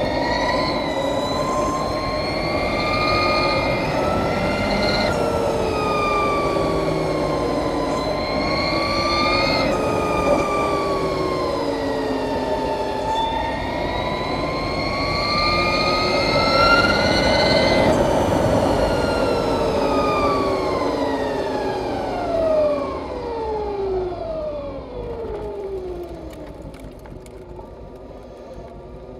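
2020 Harley-Davidson LiveWire electric motorcycle's drivetrain whining in several tones at once that rise and fall in pitch as the bike speeds up and slows through the curves, over wind and tyre noise. Over the last third the whine slides steadily down in pitch and grows quieter as the bike slows.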